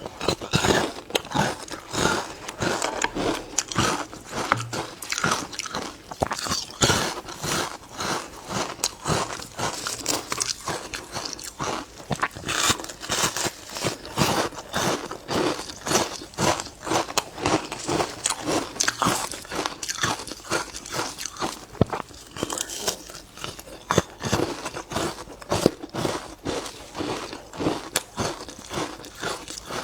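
Ice being bitten and chewed close to the microphone: a continuous run of sharp, irregular crunches and crackles, several a second.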